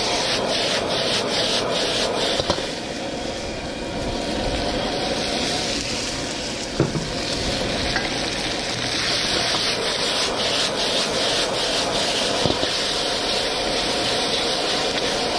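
Chicken and zucchini sizzling in a wok over a propane outdoor wok burner while being tossed and stirred with a wooden spatula: a steady rushing noise with runs of quick scraping strokes, and a few sharp knocks of the wok.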